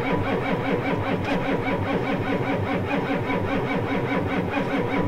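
Starter cranking the cold 7.3-litre IDI V8 diesel of a Ford F-250 at a steady, even rhythm without the engine firing, even after a shot of ether. The owner puts it down to batteries too weak and fuel that has probably gelled.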